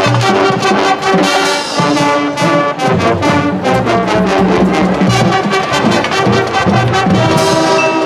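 High school marching band playing loudly: the brass section holds full chords while the percussion strikes a fast run of accents, ending in a crash near the end.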